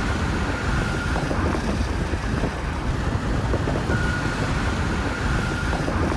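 Wind buffeting the microphone: a steady low rumbling rush, with a faint high whine that comes in twice.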